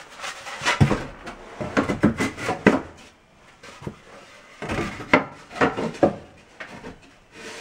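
Pieces of GoBoard foam backer board being handled and fitted together, with irregular knocks and scraping rubs.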